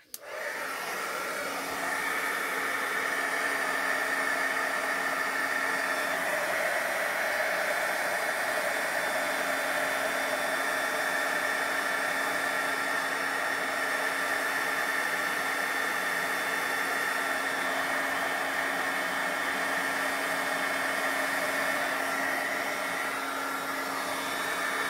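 Handheld heat embossing tool running steadily: a fan whir and rush of hot air with a steady hum, switched on at the very start. It is fully melting gold embossing powder.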